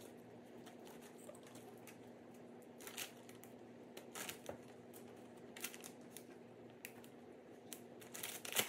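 A plastic zip-top bag rustling faintly a few times as raw chicken pieces are put into it one by one, over a steady low hum.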